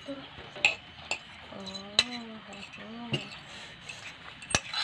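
A metal fork clinking and scraping against a ceramic plate as grated vegetables are pushed off it, with four or five sharp clinks spread through.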